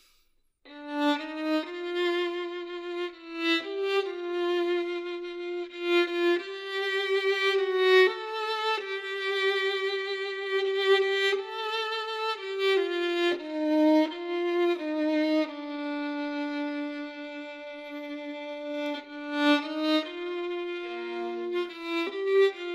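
Background music: a violin playing a slow melody of held notes with vibrato, beginning about half a second in.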